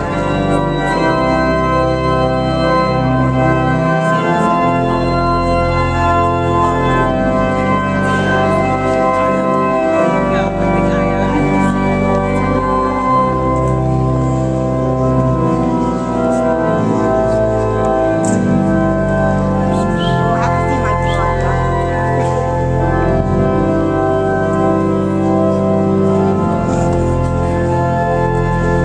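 Organ music: a processional played in slow, held chords that change every second or two.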